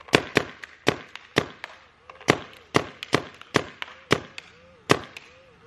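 DLX Luxe OLED electronic paintball marker firing about a dozen sharp shots at an uneven pace, roughly two a second, while it is shot one-handed.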